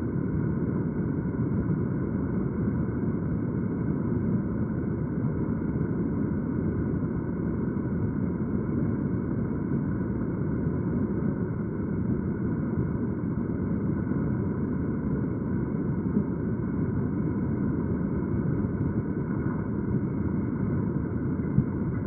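Steady, muffled rush of a small mountain stream's current running through a pool.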